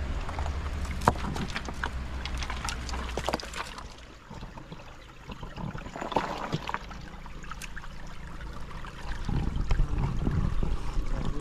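Small stream trickling among rocks, with scattered clicks and knocks of stones being shifted by hand.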